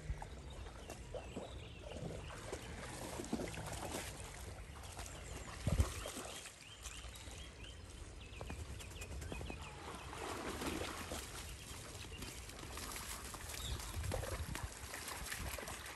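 Gentle water splashing and trickling from an Alaskan malamute paddling through a river and wading out onto the bank near the end, with one dull thump about six seconds in.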